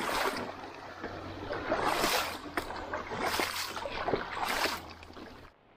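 Mountain bike riding across a rocky, shallow river crossing: rushing water-and-gravel noise that swells in uneven surges, with small clicks and rattles from the tyres and bike on the stones. It cuts off suddenly near the end.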